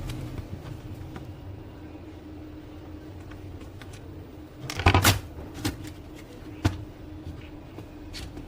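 Handling noise from an HP LaserJet M1005 printer being taken apart by hand: a short burst of plastic-and-metal clicks and rattles about five seconds in, then a few single sharp clicks, over a steady low hum.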